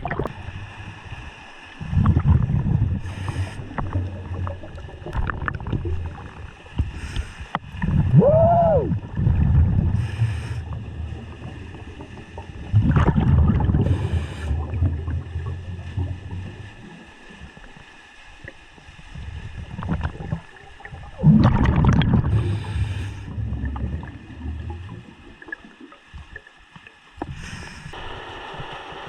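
Scuba diver breathing through a regulator underwater: exhaled bubbles rumble in heavy surges every five or six seconds, with short hisses in between. A short squeak rises and falls about eight seconds in.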